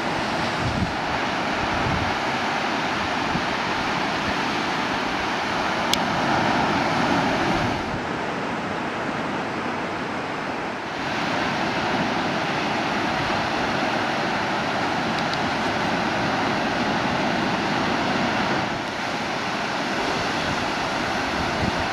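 Steady rush of ocean surf, with wind on the microphone; it drops a little in level for a few seconds partway through.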